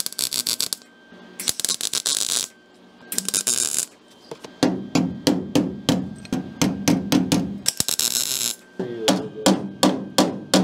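Short bursts of welding crackle as a sheet-steel patch is tack-welded into a VW bus window sill: three bursts in the first four seconds and one more near the eight-second mark. Between and after them a hammer strikes the thin welded patch about three to four times a second, each strike ringing.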